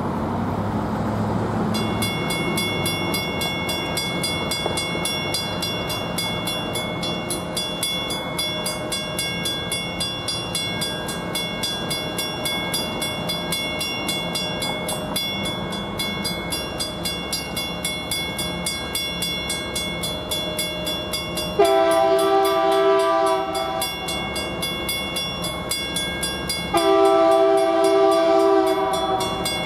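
Railroad crossing bells, a Federal Signal mechanical M-Bell and a GS electronic bell, start ringing rapidly and steadily about two seconds in as the crossing activates. An approaching BNSF locomotive sounds its horn twice for the crossing, in two long blasts about five seconds apart that are the loudest sounds.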